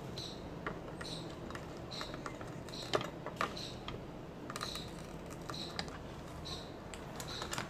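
Small clicks and taps from a soldering iron and wire leads being worked on a circuit board. A faint, short, high chirp repeats about once a second.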